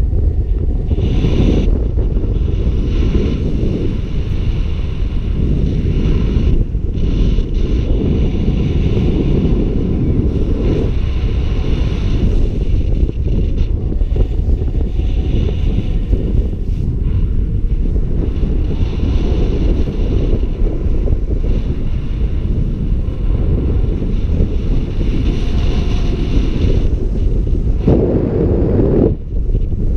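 Wind rushing over a camera microphone in paraglider flight: a loud, steady low rumble of air.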